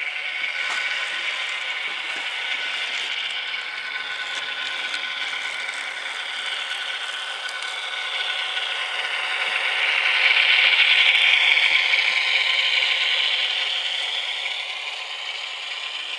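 HO-scale model locomotive's QSI sound decoder playing diesel engine sound through a tiny speaker, thin with no bass; it swells louder about ten seconds in, then settles back.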